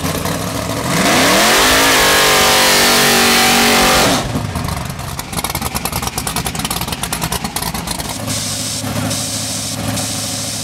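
Drag car doing a burnout: its engine revs hard and rises in pitch with tyres screeching for about three seconds, then drops back to a rough, choppy idle.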